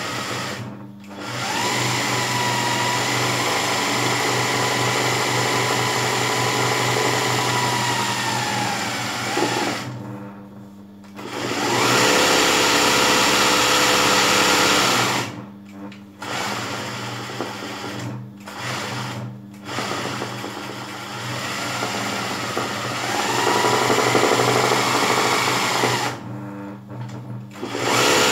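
Electric sewing machine running fast while stitching dense zigzag satin-stitch embroidery, in spells of several seconds broken by short stops. Its motor whine rises as it speeds up and falls as it slows down.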